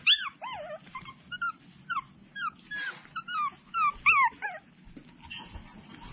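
Seven-week-old tiny toy poodle puppies whimpering and yipping: a quick string of short, high cries, each falling in pitch, that stop about four and a half seconds in.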